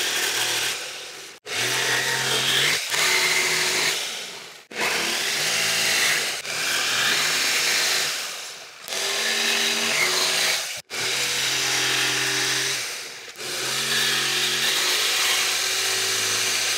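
Corded jigsaw cutting through a plywood countertop, squaring off the corners of a cooktop cutout. It runs in several separate stretches of a few seconds each, stopping and starting again between cuts, with the motor slowing now and then under load.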